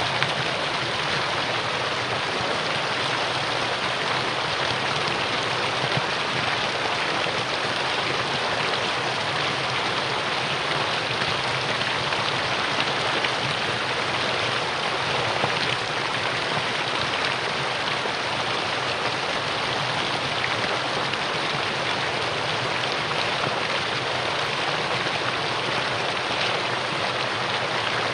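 Mountain stream rushing steadily over rocks, an even, unbroken rush of water.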